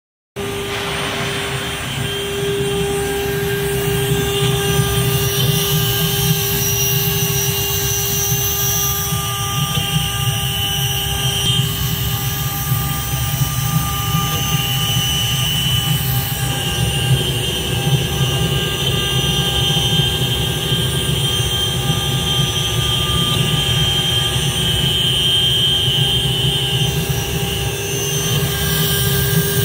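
STYLECNC STM1325-R3 CNC wood router running: a steady high spindle whine over a low mechanical rumble, the whine dropping slightly in pitch about halfway through.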